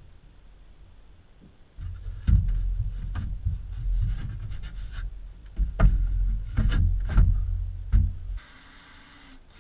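A series of knocks and thumps over a low rumble, starting about two seconds in. They come from the aluminium or plastic sliding-door channel rail being handled and fitted along the front edge of a plywood cupboard shelf. A brief faint hiss follows near the end.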